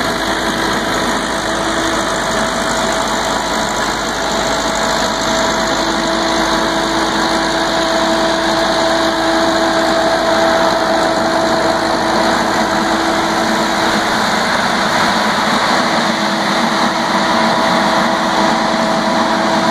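Tractor engine running and driving the Tornado 400 air-blast sprayer's 670 mm fan while it sprays: a loud, steady rush of air with a constant hum under it.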